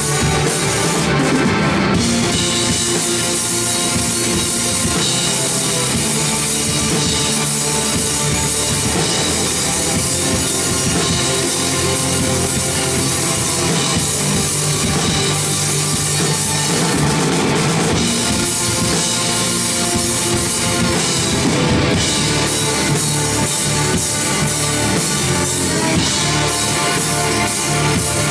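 Live rock band playing loud, steady music: electric bass, electric guitar and drum kit.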